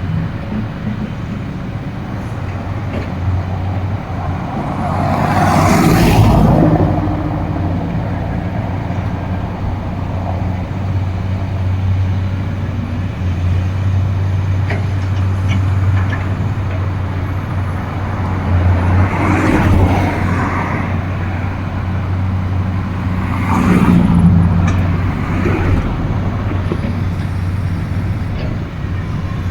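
Kobelco excavators' diesel engines running steadily at work, with three louder surges as the machines work harder.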